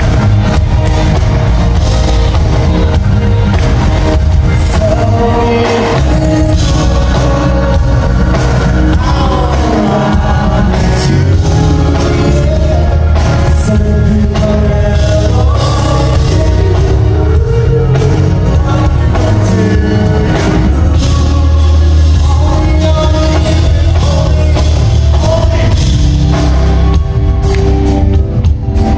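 Live concert: a band playing with a male singer's voice over it, loud and steady. It is recorded from the audience in a large hall.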